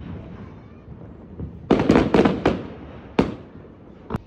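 Fireworks bursting overhead: a quick cluster of four or five sharp bangs a little under two seconds in, another about a second later, and a single sharp crack near the end, with rumbling echoes in between.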